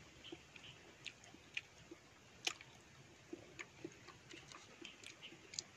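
A person chewing santol fruit close to the microphone: faint, irregular wet smacks and clicks of the mouth.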